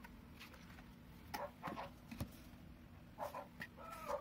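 Short animal calls, several in a row, with a brief pitched call near the end, over faint rustling of photobook pages being turned.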